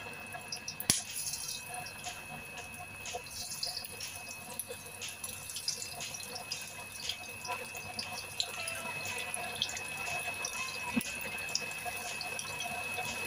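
Hot oil in a nonstick wok sizzling and spitting as flour-dusted small fish are laid into it one by one, with scattered crackles that grow denser as more fish go in.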